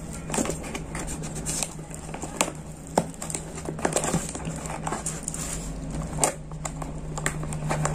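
Mail parcel being opened by hand: the packaging rustles and crinkles, with irregular small clicks and taps. A steady low hum runs underneath.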